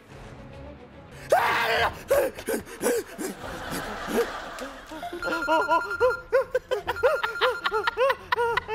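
A man's wordless vocal sounds: a short loud burst about a second and a half in, then a run of short rising-and-falling sounds, over background music.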